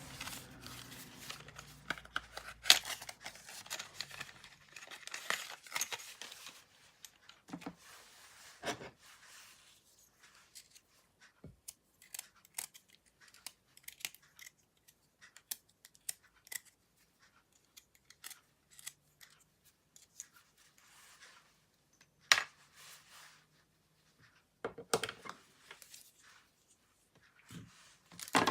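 Slime being mixed and pressed by hand, giving irregular sticky crackles, pops and small snaps. They come thick and fast for the first few seconds, then thin out to scattered single snaps.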